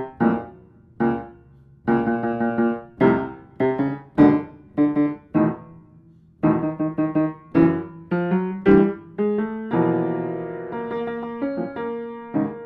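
Solo piano music: struck chords and short groups of notes, each dying away, then a longer chord held and fading near the end.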